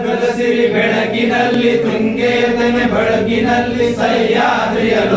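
A group of men singing a Kannada patriotic song together as a choir.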